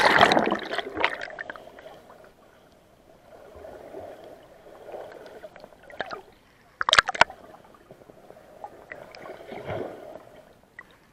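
Action camera plunging into seawater with a loud splash, then muffled underwater sound of gurgling water and a swimmer moving nearby, with sharp splashes about six and seven seconds in and a rush of bubbles near the end.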